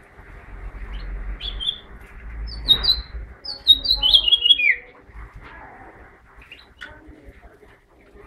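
Male house finch singing in a cage: short bursts of quick, high chirping notes, the busiest stretch from about two and a half to five seconds in, with some notes sliding down, and a few fainter chirps near the end. A low rumble sits under the first half.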